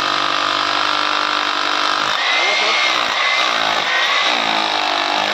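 Buildskill BGBH26RE rotary hammer drilling with a 6 mm bit, its motor running steadily, with its speed sagging briefly under load about two seconds in and again near four seconds.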